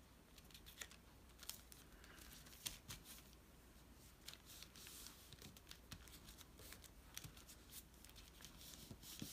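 Faint paper rustling and scattered light ticks as hands handle a paper-covered journal tag and press it flat against the table, with one sharper tick a little under three seconds in.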